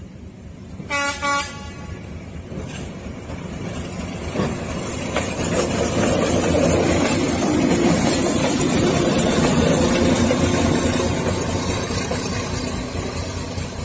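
D12E diesel-electric locomotive sounding its horn in two short blasts about a second in. Its engine then builds up loudly as the locomotive passes close by, and eases off near the end.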